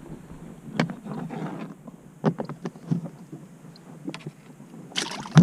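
Scattered light clicks and knocks of handling in a small fishing boat, with a louder burst of noise near the end.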